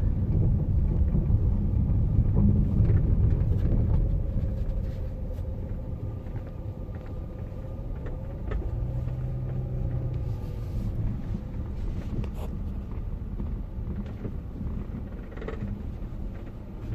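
Road and drivetrain rumble inside a moving 2015 Chrysler 300, louder for the first few seconds and then easing, with a few faint clicks from the rear that the owner takes for the noise coming from the back side of the car.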